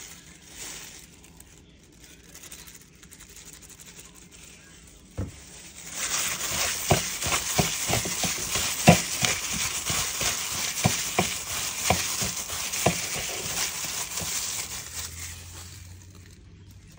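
A thin plastic bag crinkling and rustling as it is handled over pieces of raw cubed meat in a bowl, a dense crackle full of sharp clicks. It starts with a click about five seconds in and fades away near the end.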